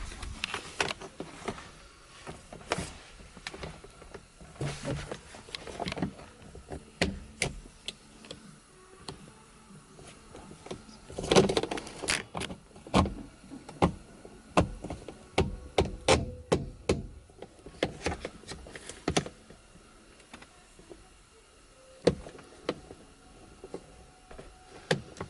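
Irregular plastic clicks, knocks and short scrapes as the seat belt butler's trim is pushed and worked back into its track, with a louder clatter about eleven seconds in.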